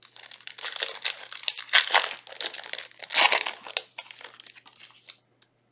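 Foil Yu-Gi-Oh booster pack wrapper crinkling and tearing as the pack is opened, with louder crackles about two and three seconds in, then stopping about five seconds in.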